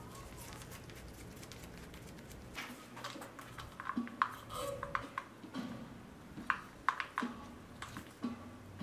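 Light metallic clinks and taps of wheel hardware being handled at a spoked dirt bike rim's rim lock, scattered through the second half, over a low steady hum.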